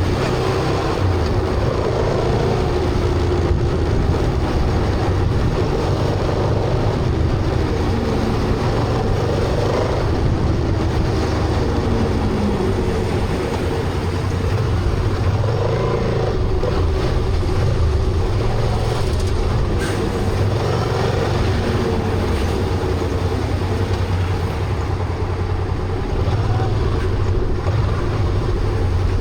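Honda Transalp motorcycle riding along, its engine running steadily under a constant rush of wind and road noise. The engine pitch drifts up and down slightly a few times.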